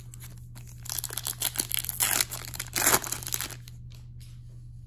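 Foil trading-card pack wrapper being torn open and crinkled by hand. The crinkling starts about a second in and stops about three and a half seconds in.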